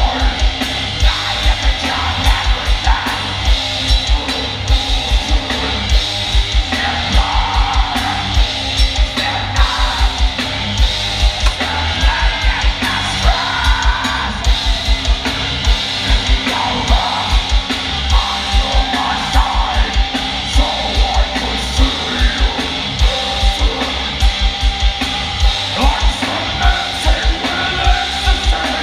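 Heavy metal band playing live: electric guitars and bass over a drum kit with steady pounding kick-drum beats, and the singer's vocals on top.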